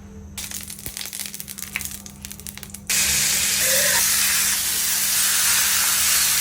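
Chicken frying in hot oil: first a lighter crackle and spatter, then, after a sudden change about three seconds in, a loud, steady sizzle.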